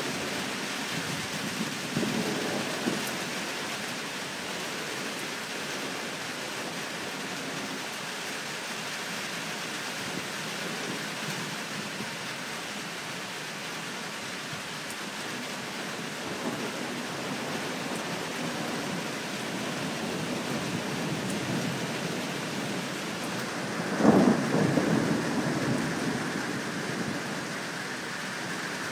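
Steady rain falling during a thunderstorm, with a faint rumble of thunder early on and a sudden, loud thunderclap near the end that rumbles away over a few seconds.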